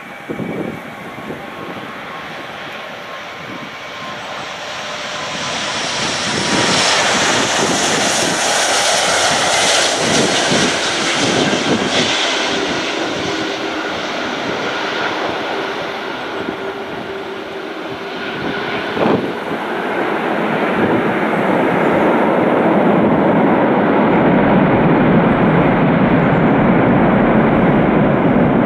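Four-engine Airbus A340-500 jet airliner, with Rolls-Royce Trent 500 engines, passing low on its landing approach: the engine noise swells to a peak with a high whine, then fades a little. From about two-thirds of the way in, a louder, deeper steady roar comes from the engines on the runway during the landing roll.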